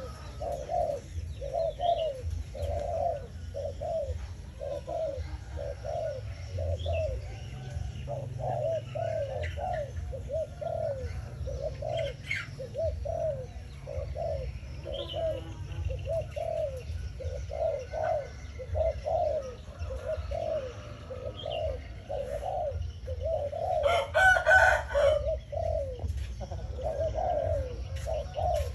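Spotted dove cooing over and over, short low notes at about one to two a second. About three-quarters of the way through, a brief louder noisy burst cuts across the cooing.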